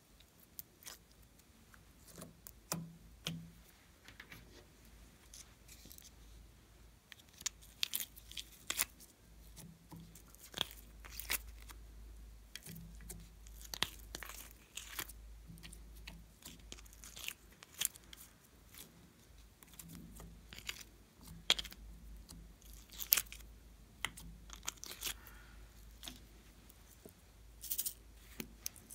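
Hands squishing and pulling slime and picking at small plastic toys and glitter: an irregular run of short sticky tearing sounds, crackles and sharp clicks.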